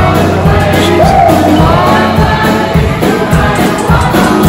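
Music with singing voices and sustained low bass.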